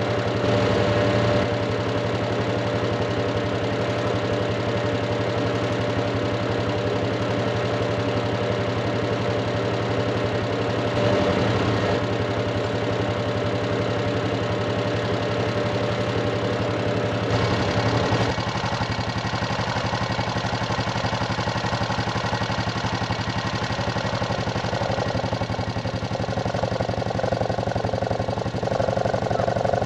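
Tractor engine running steadily, its tone changing about 17 to 18 seconds in.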